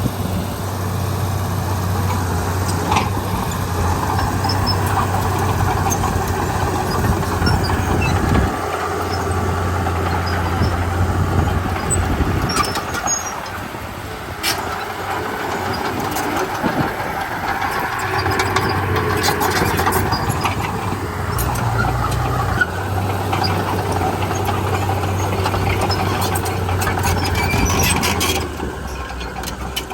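Komatsu D31P bulldozer's diesel engine working with grinding steel-track noise and scattered metallic clanks; the engine drone drops away twice, around a third of the way in and again near the end, then picks up as the load changes.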